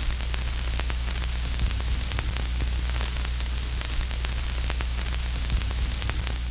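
Analogue TV static sound effect: a steady hiss with fine crackles over a low steady hum.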